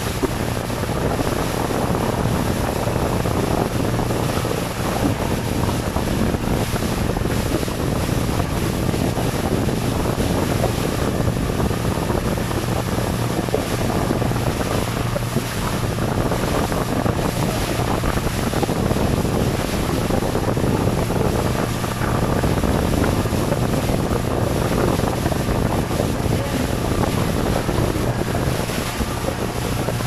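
Small motorboat under way: the engine's steady low drone under the rush of water along the hull, with wind buffeting the microphone throughout.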